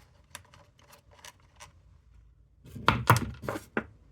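Small metal clicks and clinks as a loose hex nut and the air-filter parts are taken off a chainsaw by hand: a few faint ticks at first, then a quick run of louder clatter about three seconds in.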